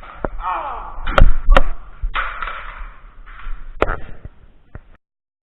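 Nerf blaster play: several sharp plastic clacks and knocks, two close together about a second in and another near the end, among rustling handling noise, before the sound cuts off abruptly.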